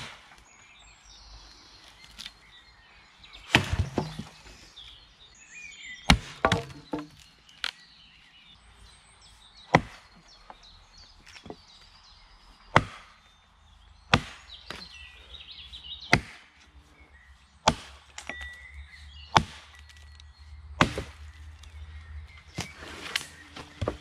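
Light axe chopping into a fallen birch trunk: a steady series of single sharp strikes, about one every second and a half.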